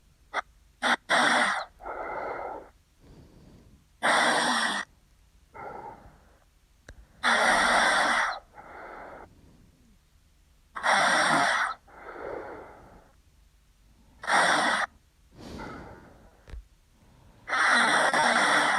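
A sleeping man snoring loudly: six snores at a slow even pace, about one every three and a half seconds, each followed by a quieter breath.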